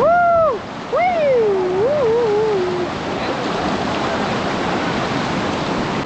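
Steady rushing of a fast, swollen rocky stream in spate, whitewater pouring over stones. In the first three seconds a person's voice calls out twice in long, wavering, rising-and-falling shouts without words.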